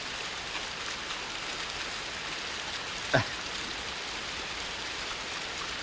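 Steady rushing of a shallow creek's current, an even hiss of moving water. About three seconds in, one short sound slides down in pitch.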